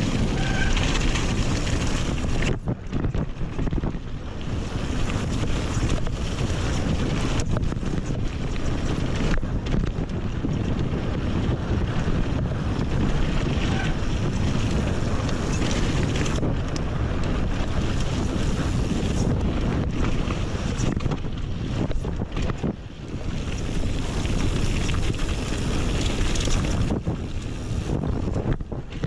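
Wind buffeting the camera's microphone while mountain biking, a steady rumbling rush that shifts abruptly a few times.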